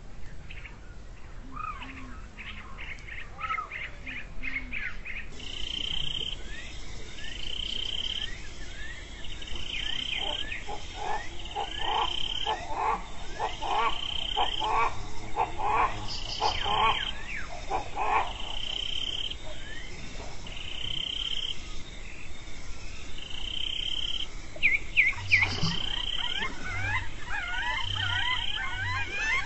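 Riverside chorus of frogs and birds. A short high call repeats about once a second, a run of rapid, lower croaking calls comes in the middle, and sliding bird chirps sound at the start and grow busier near the end.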